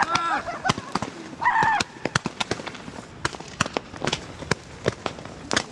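Firecrackers going off in a rapid, irregular string of sharp cracks, with two short high-pitched yells in the first two seconds. After about two seconds the cracks come quieter and further apart.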